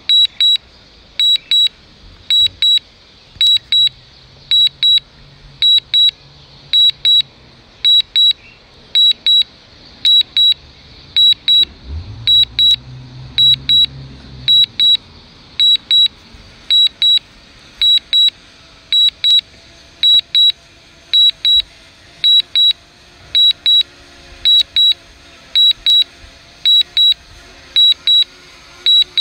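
Drone control app sounding a short, high double beep about once a second, steady and unbroken: the alert that plays while the DJI Mavic Mini returns home and lands.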